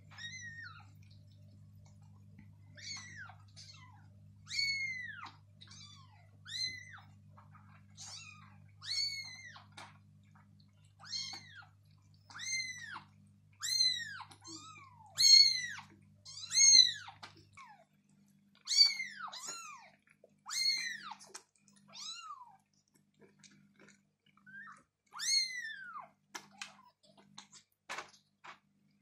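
Young kittens mewing over and over: short, high-pitched mews about one a second, some loud, falling quiet after about 22 seconds with one more a few seconds later. A few light clicks near the end.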